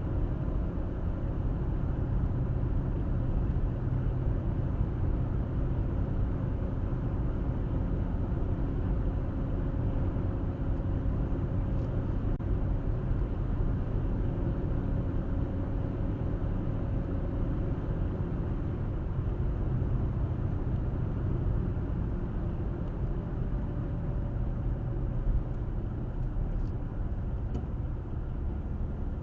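Steady road and engine noise of a car driving along, mostly a low rumble of tyres and engine with a faint steady hum. A single brief knock near the end.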